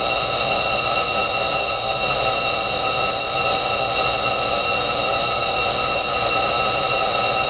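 Warren Telechron Telalarm model 715 electric alarm clock's alarm going off: a loud, steady, unbroken ringing buzz at one pitch that does not waver.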